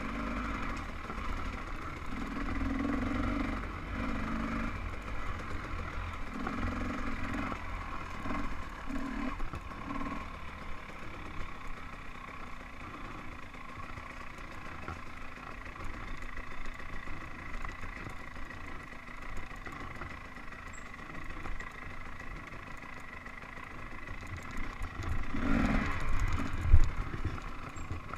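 Off-road dirt bike engine running on a tight wooded trail, the throttle opening in repeated short surges and easing off, then steadier and lower for a while. Near the end it surges louder again, with one sharp knock.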